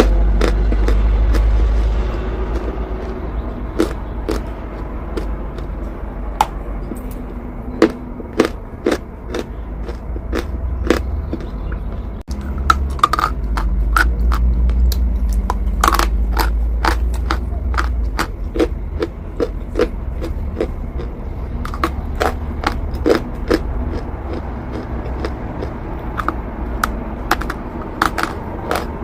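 Chalk being bitten and chewed: irregular sharp crunching snaps, sometimes several a second, over a steady low rumble.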